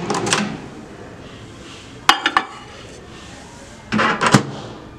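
Onida microwave oven's door handle and latch being worked by hand: a few sharp clicks near the start and about two seconds in, then a louder clatter about four seconds in.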